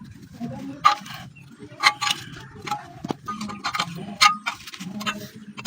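Hammer blows on hollow iron, about one a second, each ringing briefly.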